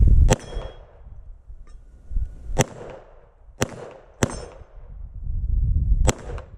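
Five single shots from a Glock 34 Gen 3 9mm pistol, fired one at a time with uneven gaps of about half a second to two seconds.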